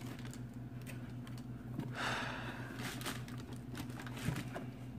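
Faint rustling of tissue paper and handling of a sneaker in a cardboard shoe box, with small scattered ticks and one slightly louder rustle about two seconds in, over a steady low hum.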